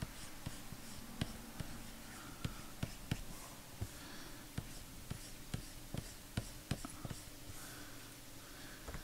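Pen stylus tapping and scratching on a graphics tablet during short sketch strokes: irregular sharp taps, two or three a second, with faint scratching between them.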